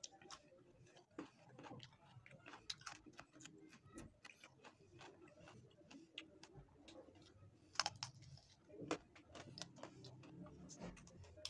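Faint eating sounds of a man eating chicken curry by hand: irregular wet clicks and smacks of chewing and lips, with the sharpest click a little before eight seconds in.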